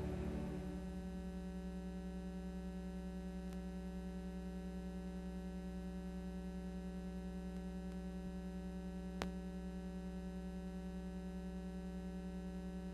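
Music fading out in the first second, leaving a steady electrical hum with a buzz of evenly spaced overtones. A sharp click comes about nine seconds in.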